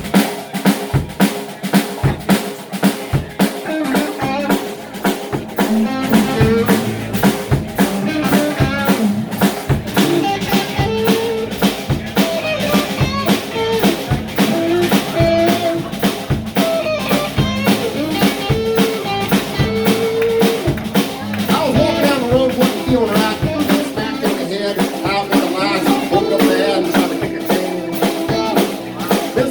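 Live rock band playing a song: a drum kit keeps a steady, even beat under guitars. The band comes in all at once at the very start.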